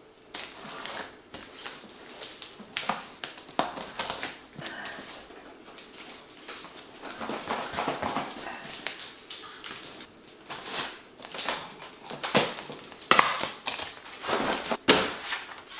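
A tape-wrapped cardboard shipping box being torn open: irregular ripping and crackling of packing tape and cardboard flaps. The loudest rips come near the end.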